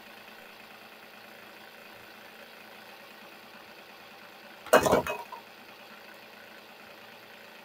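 Steady faint room hum, broken a little under five seconds in by a short, loud knock and rustle lasting about half a second as a plastic face mask is tossed aside.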